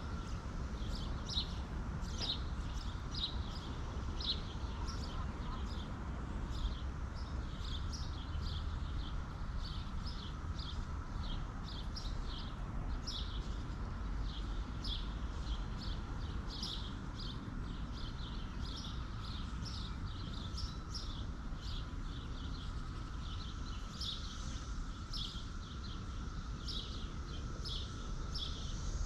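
Small birds chirping in quick short high notes, several a second, over a steady low outdoor rumble.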